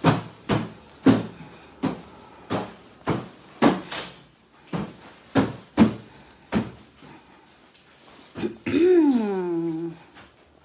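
Footsteps of someone walking briskly on a hard floor, about two steps a second. Near the end comes a drawn-out pitched sound lasting about a second, which rises, falls and then holds lower.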